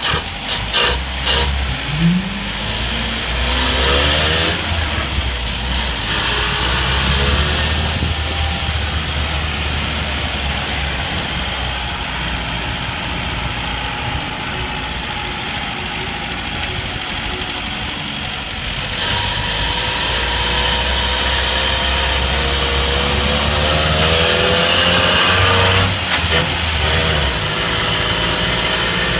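Austin Morris LD van's four-cylinder petrol engine running uncovered inside the cab while the van drives off. A few knocks come near the start, and the engine note rises twice as it revs up, about three seconds in and again near the end.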